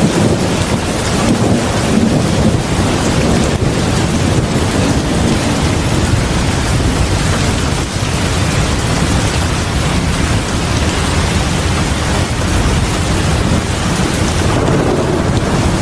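Heavy rain pouring steadily onto a house porch: a dense, even hiss with a low rumble underneath, unchanging throughout.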